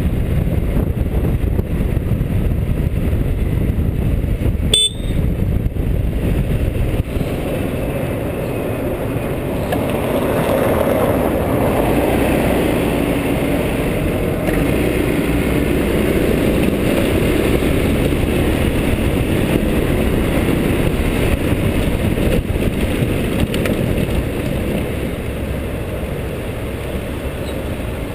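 Honda SH300i scooter's single-cylinder engine running on the move in city traffic, heavy wind noise rushing over the microphone. A brief click about five seconds in.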